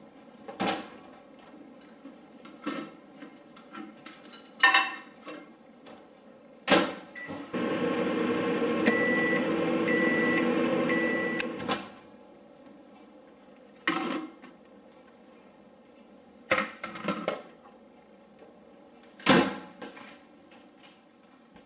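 Microwave oven running with a steady hum for about four seconds, with three short beeps in its later part before it stops. Sharp knocks and clicks come before and after.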